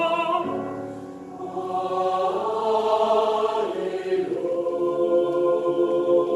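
Mixed choir singing held chords; the sound softens about a second in, swells back, and moves to a new chord about four seconds in.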